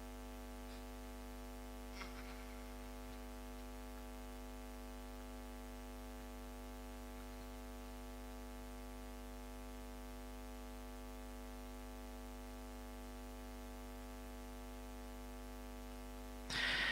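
Steady mains hum with its overtones from a public-address sound system left open between recited verses. There is a faint click about two seconds in and a short rush of noise near the end.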